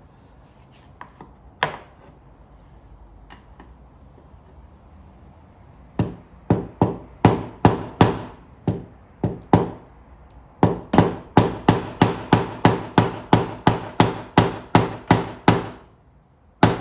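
Hammer tapping the stuck fuel-pump retaining ring on a Honda Foreman 520's tank to turn it loose. A few light knocks come first, then from about six seconds in a steady run of sharp strikes, about two to three a second, each with a short ring, stopping near the end.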